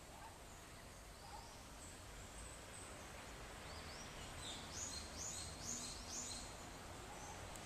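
Faint steady background noise with a bird calling: a run of about five quick high chirps from about four to six and a half seconds in.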